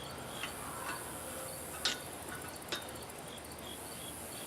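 A few sharp, light clicks and taps, two of them standing out about two and nearly three seconds in, from bolts, washers and nuts being handled while assembling a steel welding table.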